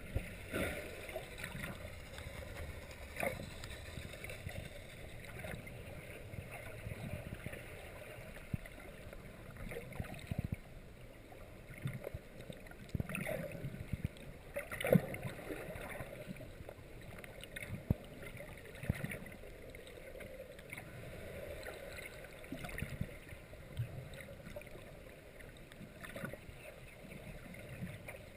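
Muffled underwater sound heard through a GoPro's waterproof housing: a steady wash of water noise with irregular gurgles and knocks against the housing. The loudest knock comes about halfway through.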